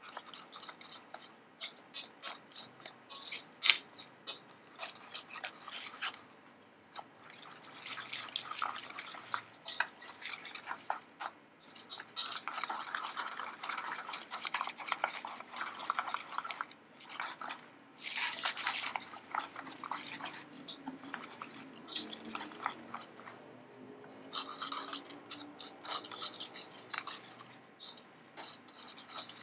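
Wire whisk beating thick flour batter in a stainless steel bowl: quick, irregular strokes of wet stirring, with the wires clicking and scraping against the bowl and a few brief pauses.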